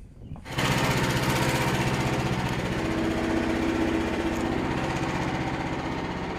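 Small gas engine of a Frontier OS27 portable bandsaw mill, which comes up suddenly to full throttle about half a second in and then runs steadily at high speed.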